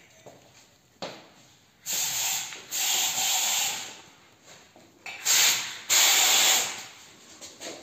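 Four bursts of rushing hiss, each about half a second to a second long: two together about two to three and a half seconds in, and two more about five to six and a half seconds in.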